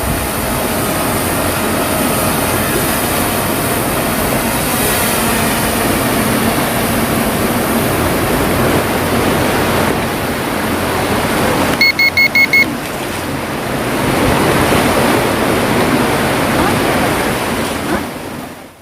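Steady rushing noise of sea surf and wind. About twelve seconds in, five short electronic beeps in quick succession.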